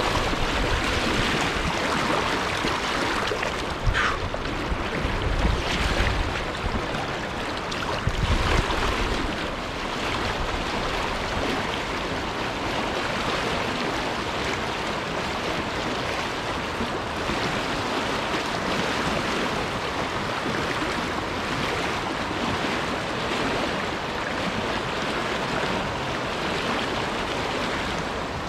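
Steady rush of a fast river current running over rocks and breaking around a boulder. A few louder bumps and a sharp tick sound in the first ten seconds.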